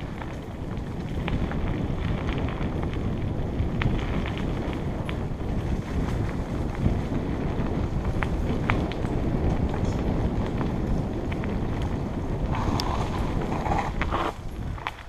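Wind buffeting the microphone over the rumble of a mountain bike's tyres on a dry dirt trail at speed, with sharp rattles and knocks from the bike over bumps. The noise drops away near the end as the bike slows.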